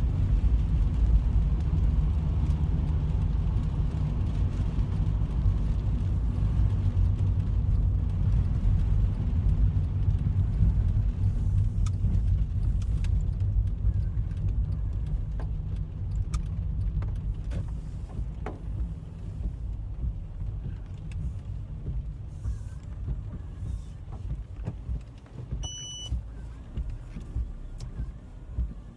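Car driving on a wet road, heard from inside the cabin: a steady low rumble of road and engine noise that eases off over the second half as the car slows down. Scattered light clicks come through as it quietens, and a single short high beep sounds near the end.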